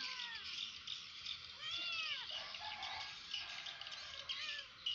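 A domestic cat meows once about two seconds in, a call that rises and then falls in pitch. Insects and birds chirp steadily in the background.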